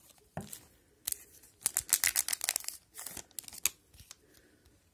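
Plastic wrapper of an Upper Deck hockey card pack being torn open by hand: sharp crinkling rips in short spurts, busiest about two seconds in, then dying away near the end.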